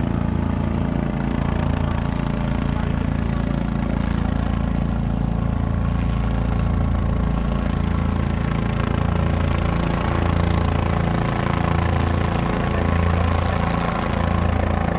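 Medical helicopter's rotor and turbine running steadily as it comes in to land: a loud, low drone with a slow throb that swells and fades about once a second.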